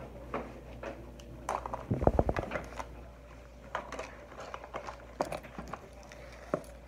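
Small items being handled and packed into a fabric zip pouch: scattered taps, clicks and rustles, with a quick run of rapid ticks about two seconds in.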